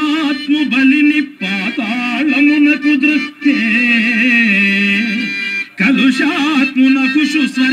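A man singing a Telugu padyam (stage verse) in long, ornamented phrases with a wavering, bending pitch, broken by short breaths. A harmonium sustains steady notes underneath.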